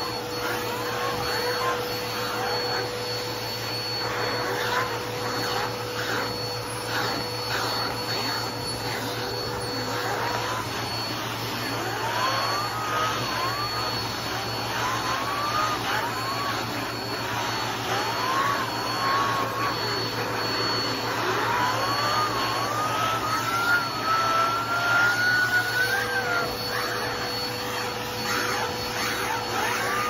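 Vacuum cleaner running steadily with its upholstery nozzle worked over fabric sofa cushions. The suction gives short whistles that rise in pitch again and again, with a longer high whistle held near the end.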